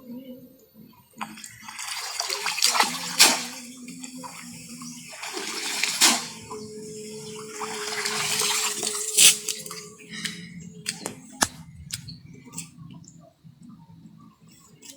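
River water splashing and sloshing in two long rushes, with sharp splashes about three, six and nine seconds in, then only small scattered drips and knocks.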